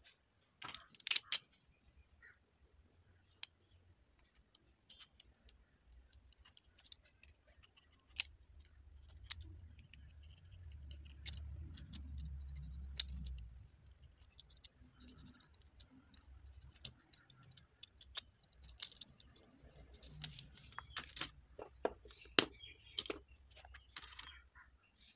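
Handling of a cut potato stamp pressed onto a card bookmark: a low rubbing rumble for a few seconds around the middle, with scattered sharp clicks and taps before and after, over a steady faint high hiss.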